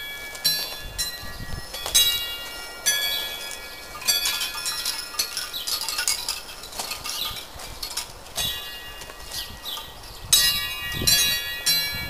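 Wind chimes ringing as the breeze stirs them: irregular clusters of strikes whose notes ring on and slowly fade. The strikes are loudest about two seconds in and again near ten seconds.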